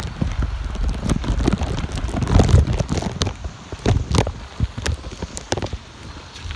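Strong wind buffeting a phone's microphone: a gusty low rumble that swells and eases, with scattered sharp crackles and taps.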